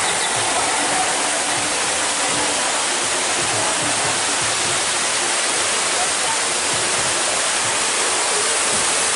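Steady rush of falling water, like a waterfall, with no breaks.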